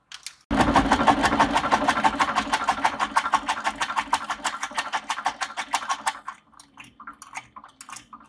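Laboratory stomacher-type homogenizer starts about half a second in, its paddles pounding a bagged tomato sample in a rapid, even beat of about eight strokes a second over a steady hum. About six seconds in the beat gives way to a quieter, uneven clatter.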